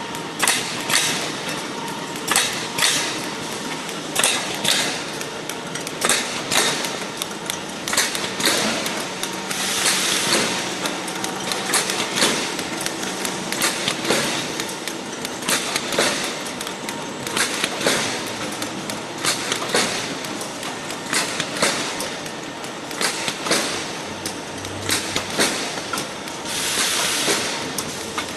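Automatic kitchen-roll plastic-film packing machine running: a steady mechanical clatter with sharp clacks and knocks about once a second, unevenly spaced. Bursts of hiss come in about ten seconds in and again near the end.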